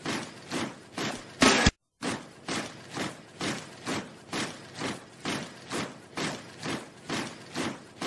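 Stomping percussion beat, about three even stomps a second, dubbed in step with a kitten's strutting walk. A louder, longer hit lands about a second and a half in, the beat cuts out for a moment, then the stomps start again.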